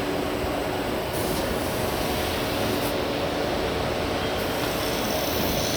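Morara grinding machine running with a steady mechanical noise.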